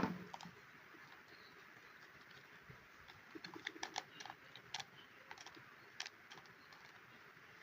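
Handling noise from the electric drill: a sharp click at the very start, then scattered light clicks and taps, with no motor running.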